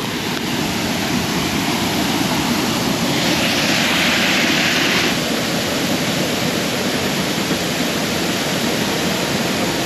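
Small waterfall cascading over a stone ledge into a rocky pool: a steady rush of falling water, its hiss growing louder and brighter for a couple of seconds near the middle.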